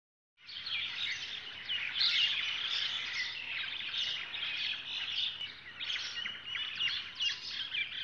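A flock of small birds chirping and calling at once in a dense, continuous chatter of many short, overlapping high notes, starting about half a second in.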